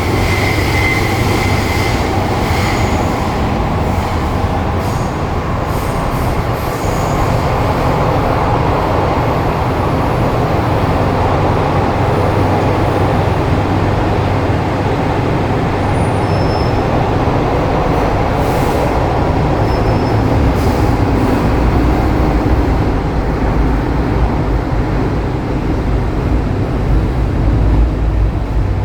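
MTR M-Train electric multiple unit running on the Kwun Tong Line: a steady, loud wheel-and-motor rumble. The low rumble grows heavier about three-quarters of the way through and peaks near the end.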